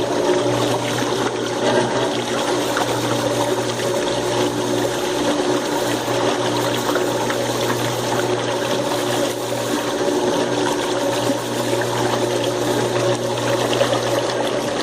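Washing machine running, with water rushing and churning over a steady motor-pump hum; the sound is taken for cavitation in the machine.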